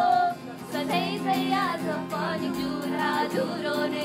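Music: a voice singing a melody over steady held instrumental notes.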